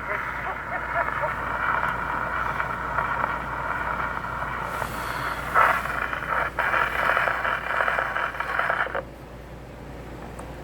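Surface noise from a shellac 78 record on an old acoustic gramophone, a steady scratchy hiss with crackle as the steel needle plays on past the end of the song. It cuts off suddenly about nine seconds in.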